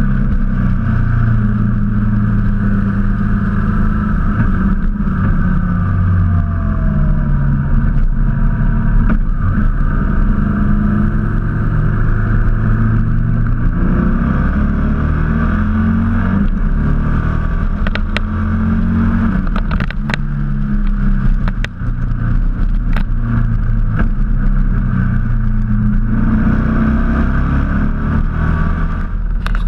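Motorcycle engine running under way, heard from a camera mounted on the bike, its pitch stepping up and down through throttle and gear changes on a winding road, over a steady rush of wind and road noise. A few sharp clicks come about two-thirds of the way through.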